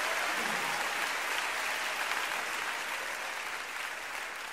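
Audience applauding, the clapping gradually fading out.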